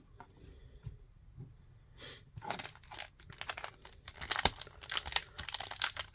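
Trading card pack wrapper being torn open and crinkled by hand, a dense crackling that starts about two and a half seconds in after a near-quiet start.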